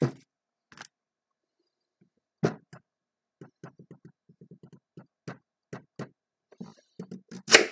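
Kitchen knife sawing through a large raw carrot in short back-and-forth strokes, about four a second, after a couple of separate knocks, with a louder sharp crack near the end.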